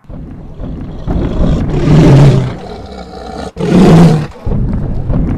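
Tyrannosaurus rex roar sound effect: a deep, loud roar over a rumble that starts abruptly and swells twice to its loudest, about two seconds in and again about four seconds in.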